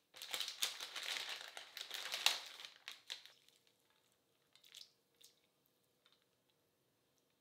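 Plastic bag of dried rice noodles crinkling for about three seconds as the noodles are pulled out of it, followed by a few faint clicks as they are laid in a pan of water.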